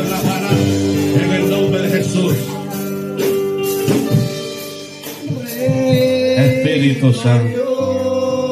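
Worship music with singing and percussion strokes, dipping briefly about five seconds in.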